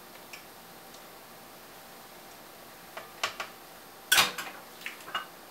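Metal clicks and clanks of a stand mixer's beater and steel bowl being handled as the beater is taken off: a few light clicks about three seconds in, a louder clank just after four seconds, then a couple of small knocks near the end.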